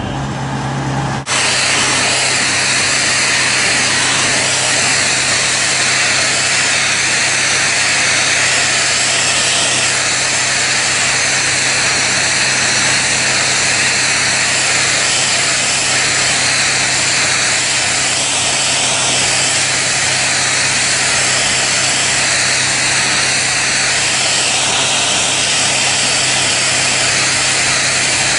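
High-pressure water jet at 500 bar blasting against stainless steel pipe: a loud, steady hiss of spray over an even low hum from the jetting pump. Briefly quieter in the first second, then steady.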